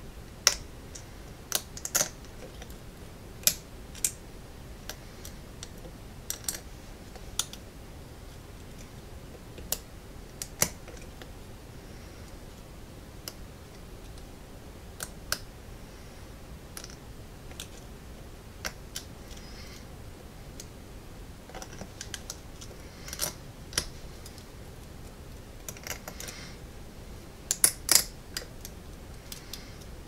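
Irregular light metallic clicks and ticks from a short hook lock pick working the pins inside a brass American padlock's pin-tumbler cylinder, with a tension wrench in the keyway. The clicks come singly, a second or so apart, with a louder cluster of several near the end.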